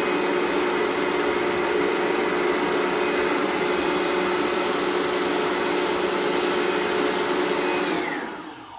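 Electric motor of the Laguna machine running at a steady speed with a vacuum-cleaner-like whine, then switched off about 8 seconds in, its pitch falling as it winds down.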